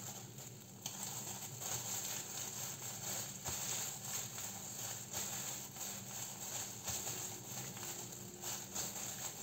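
Disposable plastic food-prep gloves rustling and crinkling, with small irregular taps from a bamboo sushi mat, as hands unroll the mat and press a nori-wrapped sushi roll on a cutting board. A steady low hum runs underneath.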